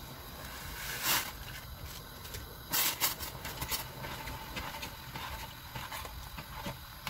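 Jelly powder shaken from a plastic packet into a steel saucepan of hot water, with a rustling hiss about a second in, then a metal spoon stirring the liquid, knocking and scraping against the pan in a louder clatter near three seconds and a run of small clinks after.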